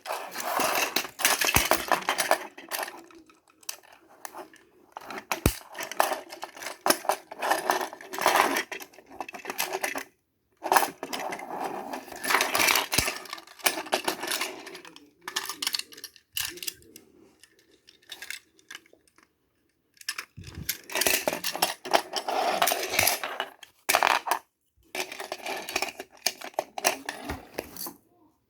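Small hard toy pieces clattering and clinking as they are handled, in irregular bursts of rapid clicks and rattles with short pauses between.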